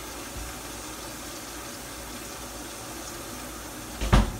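Kitchen faucet running, filling the sink with water in a steady rush. A single loud thump near the end.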